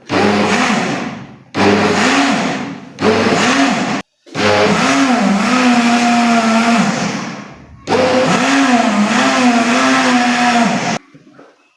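Electric kitchen blender running in short bursts on chopped spinach leaves and stems with water, about five runs with brief stops between them. In each run the motor's whine climbs and then sags as it takes the load, and the last two runs are longer. It shuts off near the end.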